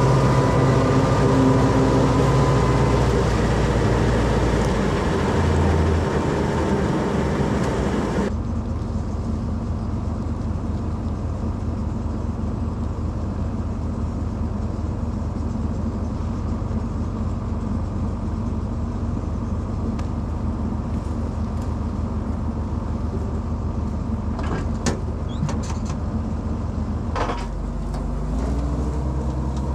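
A farm vehicle's engine running steadily, with an abrupt change in the sound about eight seconds in and the engine note rising near the end.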